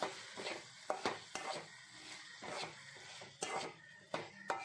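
A metal spatula stirring diced potatoes in a metal kadai, scraping and clicking against the pan in irregular strokes a few tenths of a second apart. The potatoes are kept moving so they don't stick to the pan.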